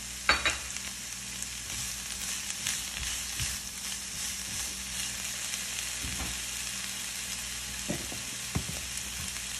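Sliced onions and bell peppers sizzling in a stainless-steel skillet as a steady hiss, stirred with a spatula that knocks against the pan a few times; a sharp clack about a third of a second in is the loudest.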